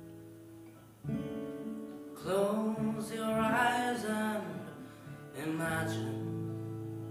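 Acoustic guitar playing a slow ballad accompaniment: sustained strummed chords, with a fresh strum about a second in and another near five and a half seconds. A male voice sings a phrase over it in the middle.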